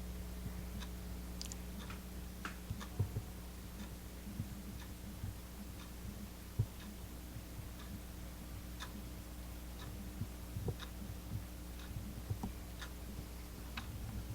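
A steady low hum with scattered, irregular small clicks and ticks, a few sharper clicks near the end.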